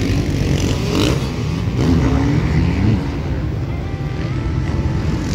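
Motocross bike engines revving, their pitch rising and falling over a continuous din, with a faint voice mixed in.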